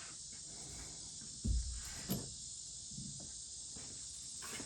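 Quiet handling noises as screen material is laid out and moved, with two soft knocks about a second and a half and two seconds in, over a steady high hiss.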